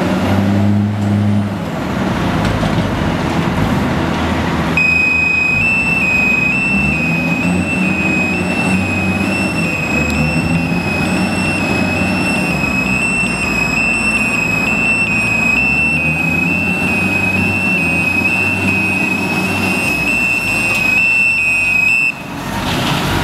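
Taylor TXLC975 top-lift container handler's diesel engine running as the machine maneuvers, heaviest in the first couple of seconds. From about five seconds in, a steady high-pitched warning alarm sounds continuously and cuts off near the end.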